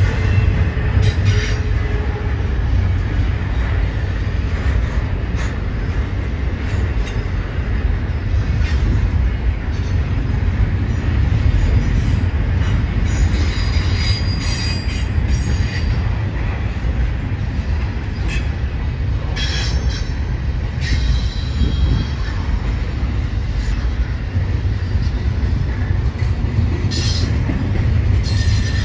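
Double-stack intermodal freight cars rolling past on the rail: a steady low rumble of steel wheels on track, with brief high wheel squeals a few times.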